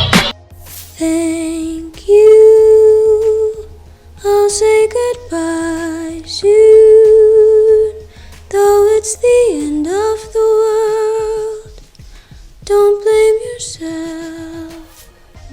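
Background music: a solo high voice humming slow, long held notes in short phrases with gaps between them, with one note sliding down in pitch about ten seconds in.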